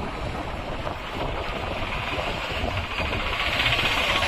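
Isuzu V-Cross pickup driving over rough field ground: engine running with steady rumbling and rattling noise, growing a little louder near the end.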